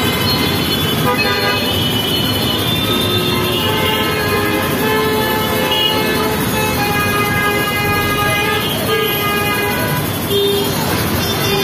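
Dense, slow-moving city traffic: a steady engine and road noise bed under near-constant overlapping vehicle horns, many short toots and longer blasts at different pitches.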